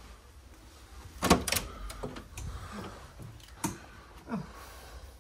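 Wooden hotel room door being opened: two sharp latch clicks about a second in, then lighter clicks and knocks as it swings open.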